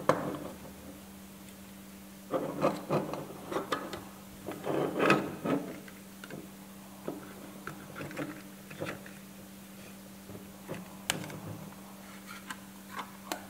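Handling sounds from a die-cast toy car and its small display case with a clear cover: a flurry of light knocks and clicks as the car is set onto the case's base and the cover is handled, then scattered clicks with one sharp click late on. A steady low hum runs underneath.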